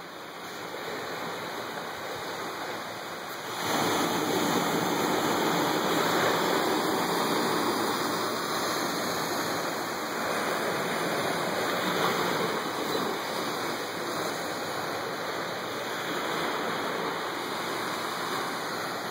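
Steady wash of ocean surf breaking on a sandy beach, heard from high above, so that the waves blend into one even rush. It grows louder about three and a half seconds in.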